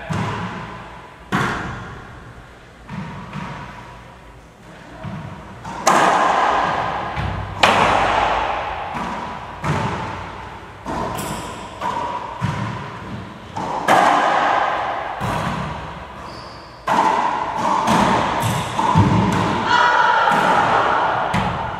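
Racquetball rally: the hollow rubber ball is struck by racquets and smacks off the court walls and floor, a string of sharp hits at uneven spacing, each ringing out in the enclosed court's echo.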